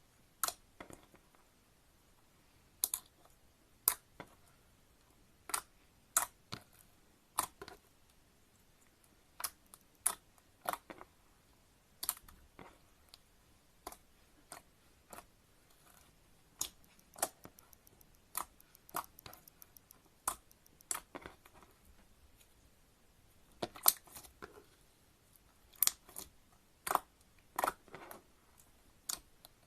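Clear slime being worked by hand with glitter mixed in, giving irregular sharp clicks and small pops, one or two a second with a few quick clusters.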